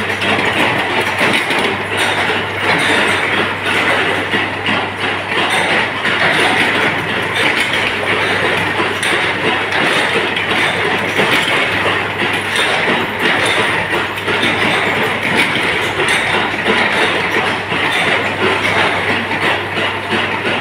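Steady, loud workshop machinery noise with a constant low hum and a continuous fine rattle, while an induction heater's coil heats a bundle of steel rods.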